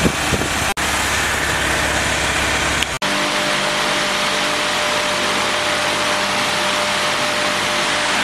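Freshly rebuilt Willys L134 four-cylinder flathead engine running during its break-in run. About three seconds in, after a brief cut, the low rumble drops away and a steadier hum with a thin whining tone remains.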